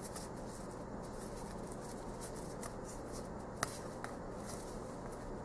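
Quiet room tone with faint handling of tarot cards in the hands. There is a sharp click of cards a little past the middle and a softer one about half a second later.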